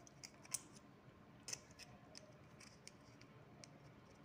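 Faint metallic clicks and scrapes of a screwdriver working a small screw in a sewing machine's steel rotary hook (shuttle), with a sharper click about half a second in and another about a second and a half in.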